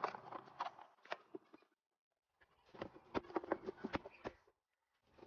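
Food-preparation handling noises: rapid light clicks and taps in two bursts, each cutting off abruptly into silence.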